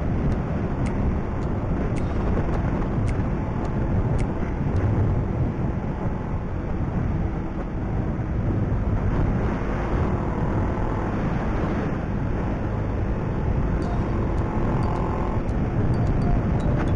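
Motorcycle being ridden on the road: a steady rush of engine and road noise. Faint ticks about once a second run through the first few seconds and come back near the end.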